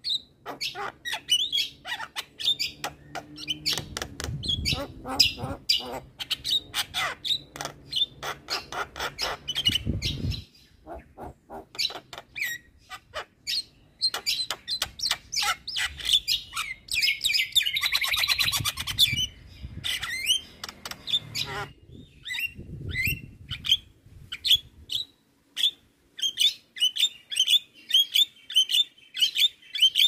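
Javan myna calling and chattering: rapid strings of short, sharp, high notes, several a second, with a dense burst of chatter a little past the middle and a couple of brief pauses.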